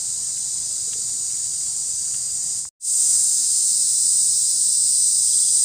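Steady, high-pitched buzzing of an insect chorus, cutting out abruptly for a split second a little before halfway through and coming back slightly louder.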